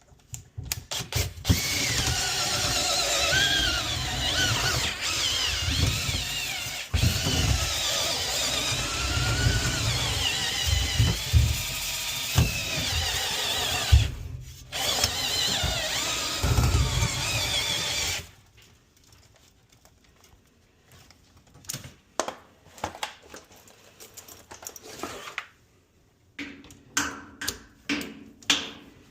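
Power drill spinning a rotary dryer-vent cleaning brush in the duct, running with a wavering pitch under load and a brief pause partway, then stopping; a scatter of light clicks and knocks follows.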